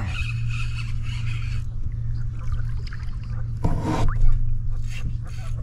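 Water splashing and sloshing against the kayak, with one short, louder splash a little before four seconds in. A steady low hum runs underneath.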